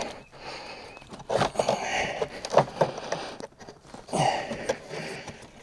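Rustling and scraping as a truck's sleeper boot is pulled and worked into place, in two spells with a few light knocks.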